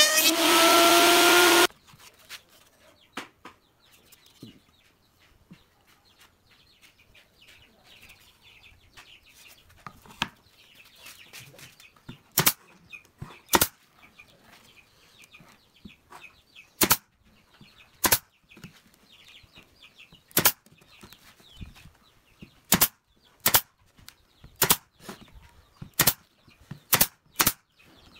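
A table saw blade spinning with a rising pitch cuts off suddenly less than two seconds in. Later a pneumatic nailer fires about a dozen sharp shots, roughly one a second, driving brads into pine boards.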